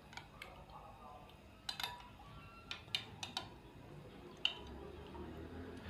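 Metal spoon stirring semolina soaked in milk in a glass bowl: faint, irregular clinks of the spoon against the glass, about eight in all.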